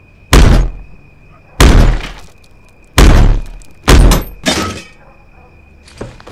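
Heavy blows against a wooden door: four loud thuds about a second apart, each ringing briefly, as the door is forced open. Lighter steps follow near the end.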